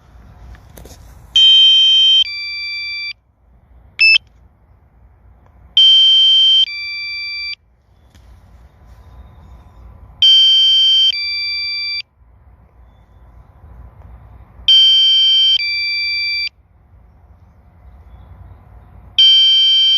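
Drone controller's low-battery warning alarm: a two-part electronic chime of steady beeping tones, repeating about every four and a half seconds, sounding because the Mavic Mini's battery is low.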